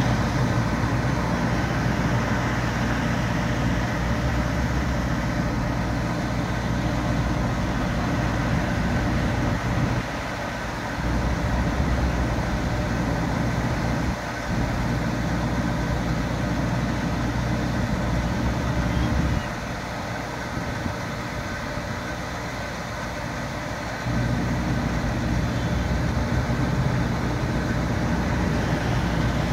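Engine idling with a steady low hum. The hum drops away briefly about ten seconds in and again for several seconds from about twenty seconds in.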